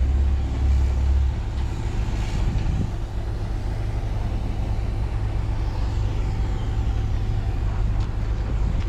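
Terex Cedarapids CR452 asphalt paver's diesel engine running steadily, a deep drone; its lowest part eases a little over a second in.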